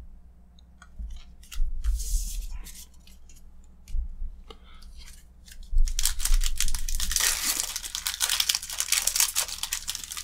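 Foil wrapper of a Magic: The Gathering Modern Horizons booster pack crinkling and tearing as it is opened by hand, loud and continuous from about six seconds in. Before that, a few light clicks and rustles of cards being handled.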